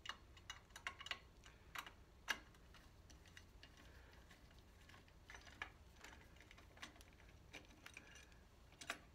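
Scattered small clicks and ticks of a screwdriver working the metal heat-sink screws on an X-ray collimator, coming at irregular intervals over a faint low hum, with the sharpest click about two seconds in.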